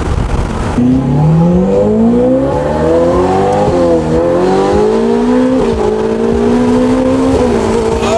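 Ferrari 488 Pista's twin-turbo V8 through a Novitec straight-pipe exhaust, pulling hard under acceleration. The note climbs steadily, drops in pitch at quick upshifts around four and five and a half seconds in, holds level, then drops again near the end.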